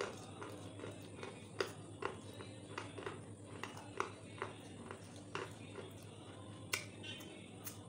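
Irregular light clicks and taps, about one or two a second, from a white plastic plate of fried chicken lollipops being handled. A steady low hum runs underneath.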